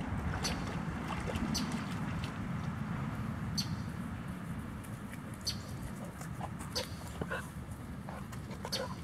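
Wind rumbling on the microphone, with a Labrador puppy splashing as it wades through shallow pond water during the first couple of seconds. Short high chirps or ticks come every second or two.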